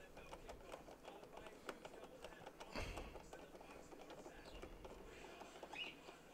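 Faint small clicks and scrapes of a hand screwdriver turning screws out of a metal panel, with one louder knock a little under three seconds in.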